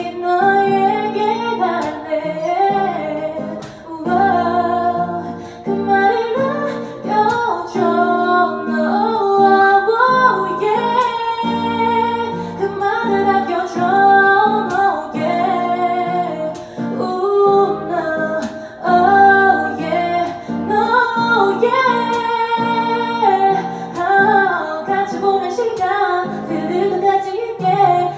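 A woman singing a song into a microphone, accompanied by an acoustic guitar, performed live.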